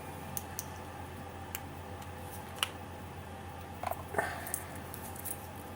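Scattered small clicks and taps of a watch case ring being fitted around a quartz movement in its case, with a sharper click about two and a half seconds in and a cluster of taps near four seconds, over a steady low hum.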